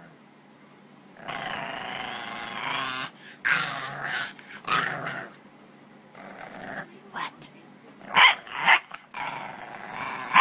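Bulldog puppy grumbling and growling in long stretches, breaking into a few short, sharp barks near the end.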